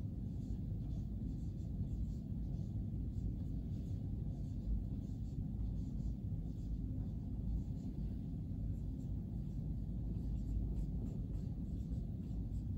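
Dry-erase marker writing on a whiteboard, a run of faint short strokes, over a steady low rumble that is the loudest sound.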